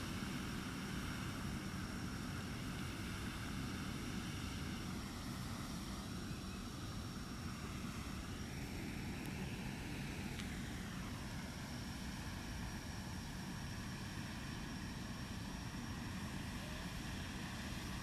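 Distant engine drone, steady and low, with a pitch that slowly rises and falls around the middle, as from a passing propeller plane or traffic. A faint thin high hum runs alongside it.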